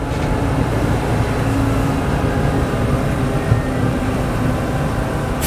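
Steady low rumble of a tram in motion, heard from on board: motors and wheels running along the rails.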